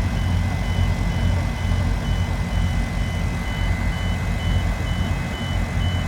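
A construction vehicle's backup alarm beeping steadily, about twice a second, over the low running of a heavy diesel engine.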